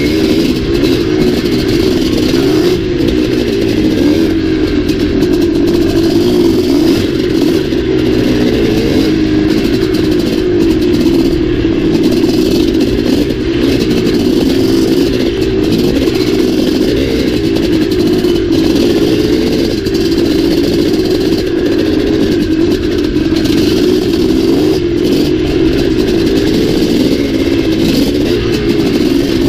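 Big-bore single-cylinder two-stroke Maico dirt bike engine running under load on a trail ride, heard from a camera on the bike, its pitch rising and falling with the throttle and gear changes.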